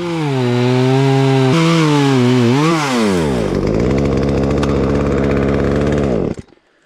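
Two-stroke chainsaw running at high revs, its pitch wavering and dipping, then dropping to a lower steady speed for about three seconds before stopping abruptly near the end.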